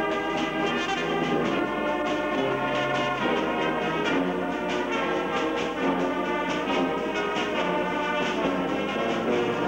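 Brass band playing, with trumpets and trombones holding chords over drum beats.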